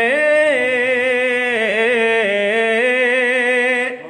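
A man's voice singing a naat unaccompanied, drawing out long wavering melismatic notes between lines of the verse. It breaks off just before the end.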